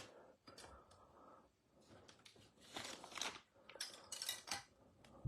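Faint handling noise: scattered light clicks and rustles, in two short clusters about three and four seconds in.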